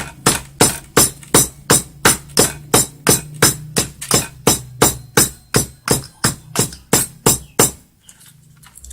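Pestle pounding karuk leaves in a mortar to grind them fine: even, hard knocks about two and a half times a second. The pounding stops near the end.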